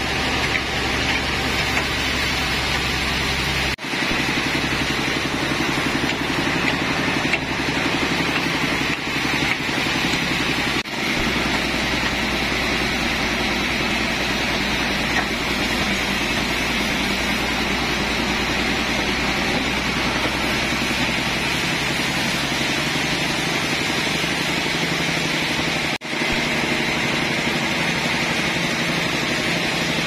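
Band sawmill running steadily, its drive engine and blade cutting a large trembesi log, with three brief sharp dips in the sound.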